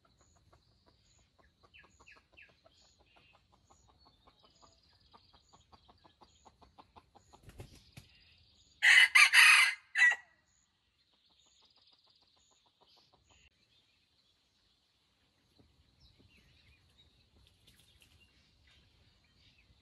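Red junglefowl rooster crowing once, a short harsh crow about nine seconds in, after a run of soft rhythmic clucks that grow louder leading up to it.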